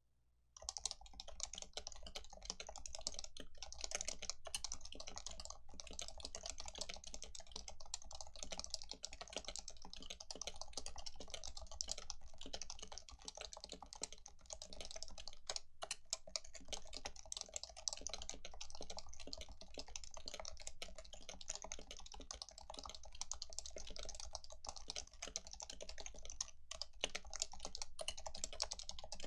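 Fast continuous typing on a stock Leopold FC660C, a compact keyboard with Topre electrostatic capacitive switches and 45 g rubber domes, each keystroke a soft muted thock. The typing starts about half a second in, with a few brief pauses between bursts of keystrokes.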